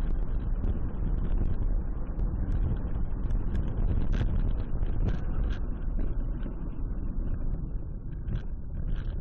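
Steady low rumble of road and engine noise inside a moving car, as picked up by a dash-cam microphone, with a few faint clicks about four, five and nine seconds in.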